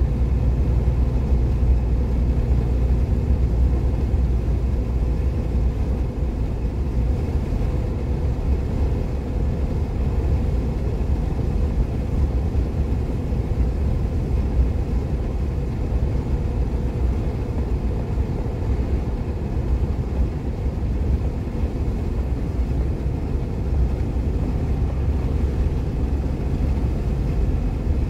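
Steady low rumble of a car travelling at motorway speed: tyre, road and engine noise.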